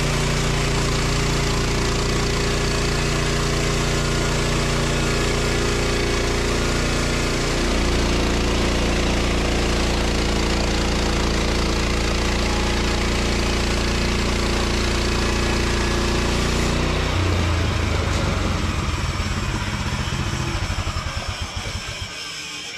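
Kohler engine of a Woodland Mills HM130MAX portable bandsaw mill running steadily, its note shifting about seven seconds in. About seventeen seconds in it cuts back and spins down with slowing pulses until it stops near the end.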